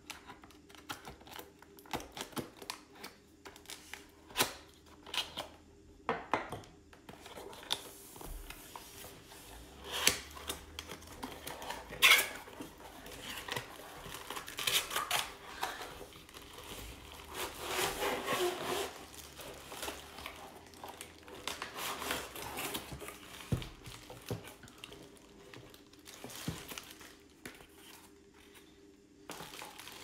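Cardboard box being cut open with a utility knife and unpacked by hand: scraping and tearing of the cardboard, irregular clicks and knocks, and crinkling of the plastic bag around the tool. A sharp click about halfway through is the loudest sound.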